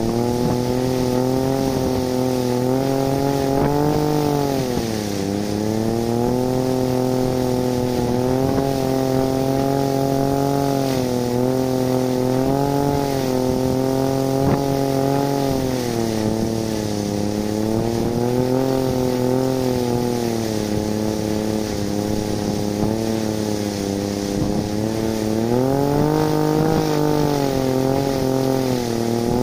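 Small 3D-printed three-bladed wind turbine spinning fast in storm-force wind, giving a steady motor-like whine whose pitch sags and climbs as gusts slow and speed up the rotor, dipping about five seconds in and again near the end. A steady hiss of wind runs underneath.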